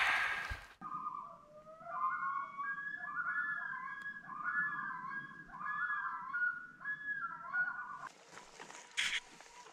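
An animal calling at night: a pitched, whistle-like phrase of rising and falling notes, repeated several times, starting and stopping abruptly.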